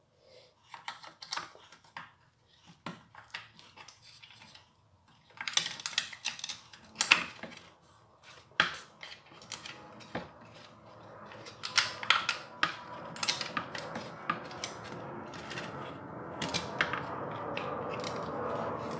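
Irregular clicks and knocks of hands handling the plastic and metal parts and wires of a stick vacuum's opened motor. In the last few seconds a steady rushing noise builds up under the clicks.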